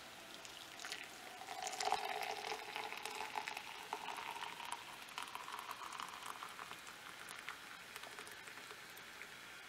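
Hot water pouring in a stream from an electric kettle into a tall mug with a tea bag, splashing in the mug. The pitch of the pour rises steadily as the mug fills, and the pour eases off near the end.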